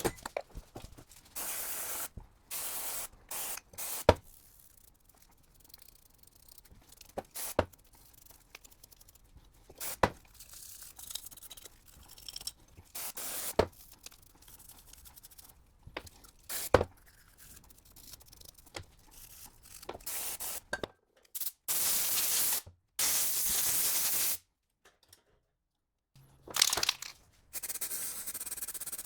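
Several long hissing spray bursts while starter motor parts are cleaned, with sharp single metal knocks between them.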